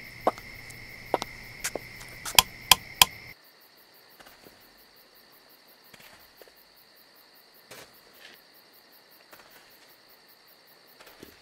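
A light switch is flipped several times, about six sharp clicks in the first three seconds, over a steady chirring of crickets. After about three seconds the sound drops to a fainter cricket hum with a few soft ticks.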